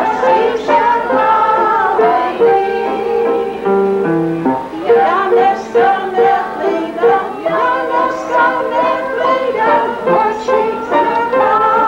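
A kitchen band playing a tune: piano with kazoo-style novelty horns carrying the melody.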